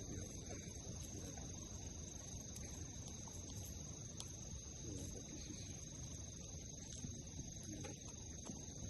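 Insects trilling in one steady high-pitched buzz, over low background noise.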